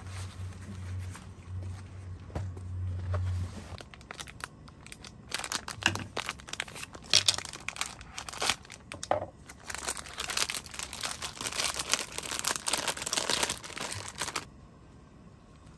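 Plastic food packaging being torn open and crinkled by hand, a dense crackling rustle from about five seconds in until shortly before the end. A low steady hum and light handling sounds come before it.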